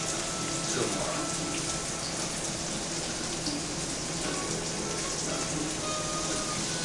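Bacon sizzling and spitting in hot grease in a frying pan, a steady crackling hiss.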